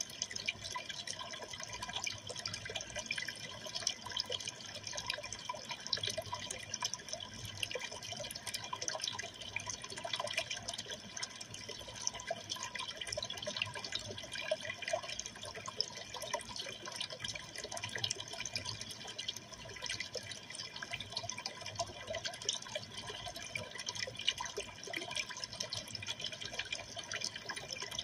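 Aquarium water trickling and splashing steadily, a continuous fine patter of small drips, from the tank's water circulation.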